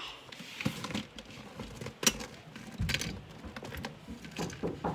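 Handling noise on a handheld phone's microphone: scattered knocks, clicks and rustles, the sharpest about two seconds in.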